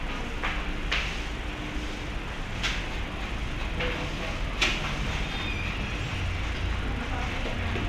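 Low, steady rumble of engine and road noise heard while riding in a moving vehicle, with a few sharp knocks or rattles. The knocks come about a second in, near three seconds, and loudest a little before five seconds.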